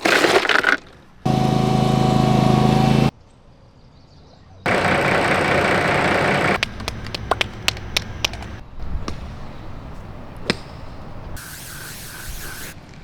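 A quick sequence of cut-together golf-course sounds: a sharp hit at the start, a steady pitched hum for about two seconds, a burst of hiss, then a run of sharp clicks and knocks, ending with a short hiss.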